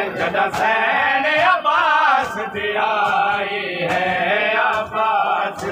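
Male voices chanting a noha, a Shia lament, in a melodic recitative, with sharp slaps now and then.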